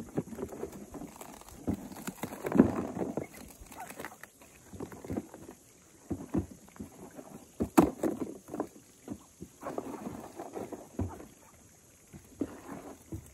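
Ducks and a goose splashing and paddling about in pond water as bread is thrown to them, in irregular splashes with a sharp knock about eight seconds in.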